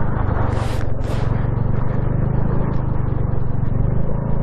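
Honda Navi's small single-cylinder engine running steadily as the bike is ridden, under wind noise on the microphone. Two short hissing rushes come about a second in.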